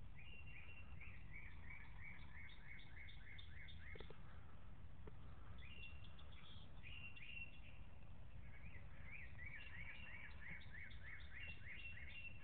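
Songbird singing: phrases of quick, evenly repeated falling whistled notes, several a second, in three spells of two to three seconds each, over a low steady rumble.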